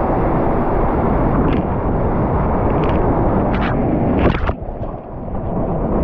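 Water rushing and splashing under an inflatable tube sliding down a waterslide, with several short splashes around the middle. The sound drops off briefly a little past halfway, then the rushing water and spray build again as the tube runs through white water.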